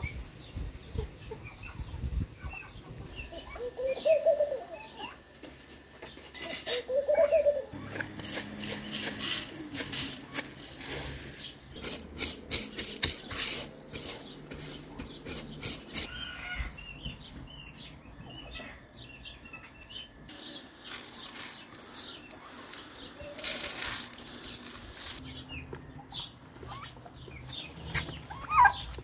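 Small birds chirping, with two louder calls about four and seven seconds in. From about eight to sixteen seconds in comes a dry rustling of raw rice grains being spread by hand over a metal tray. Near the end, turkeys are calling.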